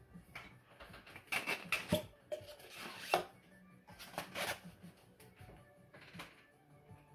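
3D-printed plastic rocket parts being handled and taken apart: a scattered series of clicks, knocks and short scrapes of plastic on plastic, over faint background music.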